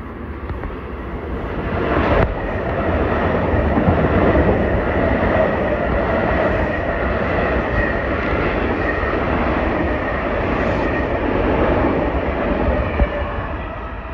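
Long Island Rail Road electric multiple-unit train rushing past at speed, its wheels rumbling on the rails under a steady high whine. The sound swells about two seconds in as the cars reach the platform and eases off near the end as the train pulls away, with one sharp click near the end.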